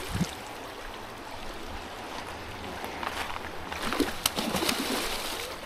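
River current running, a steady rushing hiss, with a few short clicks or taps about three to four and a half seconds in.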